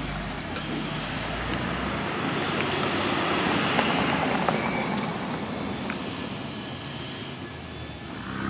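Rumbling noise of a passing engine, swelling to a peak about four seconds in and then slowly fading.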